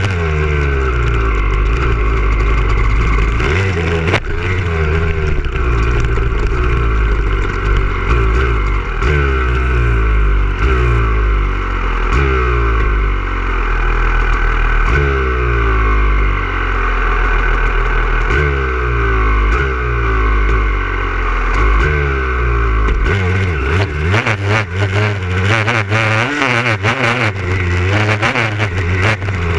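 Motocross bike engine heard from an onboard camera, revving hard and climbing in pitch again and again as the rider accelerates and shifts up, then dropping back off the throttle. Several knocks break in near the end.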